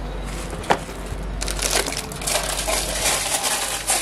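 Cardboard gift box and plastic wrapping being handled, rustling and crinkling, with a sharp click a little under a second in.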